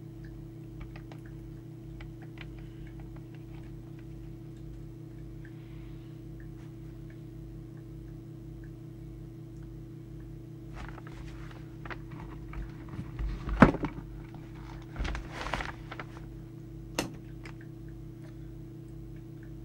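A CB radio microphone and its coiled lead being handled: rustling and knocks, with one sharp loud click about two thirds of the way in and another shortly after, over a steady low hum.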